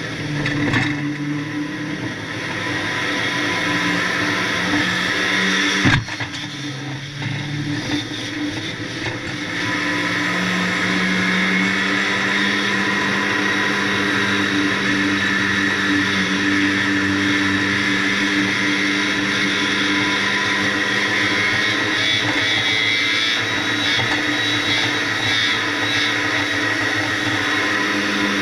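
A 1600cc banger race car's engine heard from inside its stripped cabin, running hard at race speed. The revs rise and fall through the first ten seconds, then hold at a steady high pitch. A single sharp bang comes about six seconds in.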